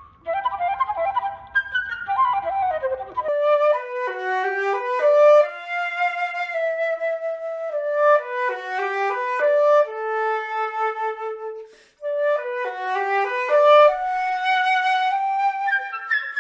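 Solo concert flute playing a melody of quick runs and held notes. The recording changes about three seconds in and again near twelve seconds, as one flute clip gives way to another.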